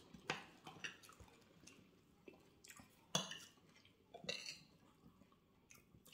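Metal spoon and fork scraping and clinking against plates of food: a few faint, scattered scrapes and clicks.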